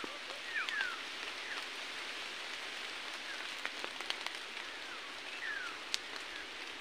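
Forest ambience: a steady hiss with several short, falling whistled bird calls and a few faint clicks.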